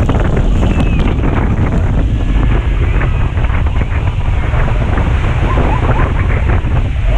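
Loud, steady rush of churning water with wind buffeting the microphone.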